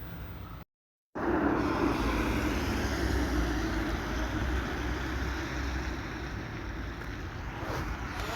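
A brief cut to silence about a second in, then the steady whirring rush of a small camera drone's propellers running on the ground just before take-off.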